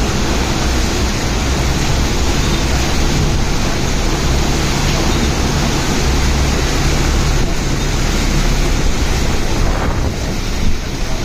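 Steady rush of wind and storm over open floodwater, with wind buffeting the microphone as a low rumble.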